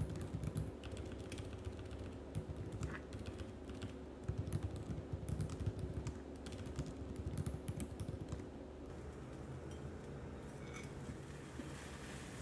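Laptop keyboard typing: quick runs of key clicks that stop about nine seconds in, over a steady low hum.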